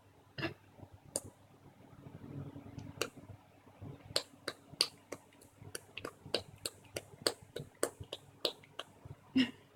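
A child making clicking sounds with his mouth: a run of short, sharp tongue clicks, a few scattered at first, then coming steadily about three a second from about four seconds in.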